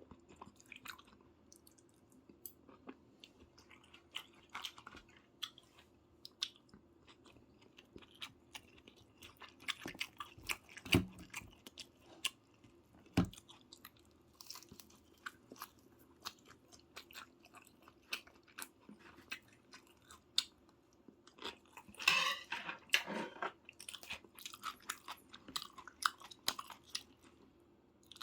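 Close-miked chewing and mouth sounds of a person eating soy-braised chicken (ganjang jjimdak): a run of short wet clicks and smacks, with two sharper knocks near the middle and a denser spell of eating noise about two thirds of the way in.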